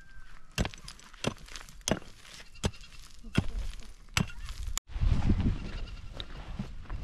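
Repeated sharp blows of a hand tool, about one every three quarters of a second, seven strikes in all. After a sudden break about five seconds in, a flock bleats.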